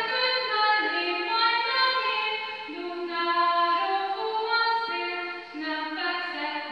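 Children's voices, mostly girls', singing a song together in one melody line, moving in steps through long held notes.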